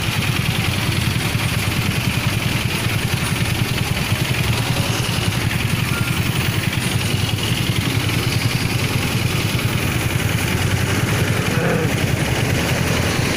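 Motorcycle engine idling with a steady, rapid low pulse, heard from on the bike while it waits in traffic.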